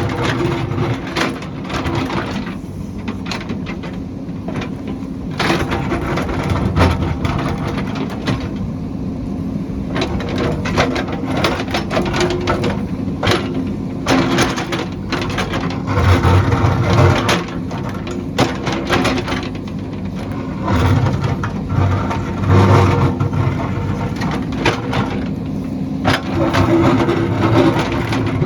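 Heavy construction machine's engine running steadily, with frequent irregular clanks and knocks of metal and debris as it works.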